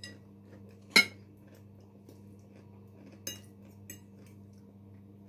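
Cutlery clinking against a plate while eating: four short clinks, the loudest about a second in, over a steady low hum.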